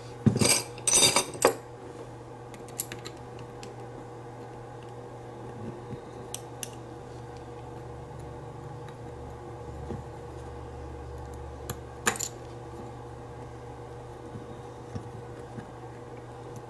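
Small metal clinks and clicks from handling a Lockwood pin-tumbler lock and metal tools: a quick cluster of sharp clinks in the first second and a half, then a few single clicks spread apart, over a faint steady hum.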